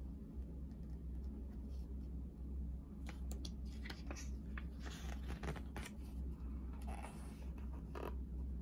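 Pages of a large hardcover manga volume being handled and turned: scattered paper rustles and small clicks from about three seconds in, with a longer rustle of a page turning near the end, over a steady low hum.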